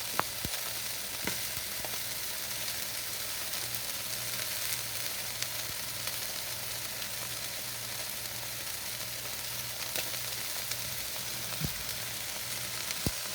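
Chicken breasts searing in a hot frying pan, a steady sizzle, with a few light clicks.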